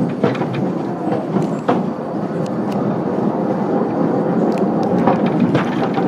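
Mine train rolling along its rails: a steady rumble with irregular clicks and knocks from the wheels on the track.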